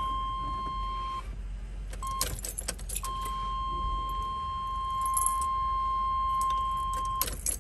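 Ignition key being turned in an OBS GMC pickup's steering column with the engine off, keys jangling and clicking, while a steady high dashboard warning tone sounds with the key on. The tone stops while the key is worked about two seconds in, then returns until the key is turned again near the end: the key is being cycled to build fuel and oil pressure after a fuel filter and oil change.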